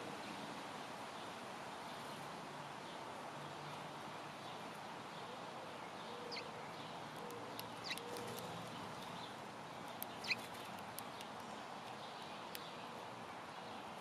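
Outdoor bird ambience over a steady hiss: a dove cooing softly a few times in the first half, and a few short, high chirps from small birds with some sharp ticks around the middle.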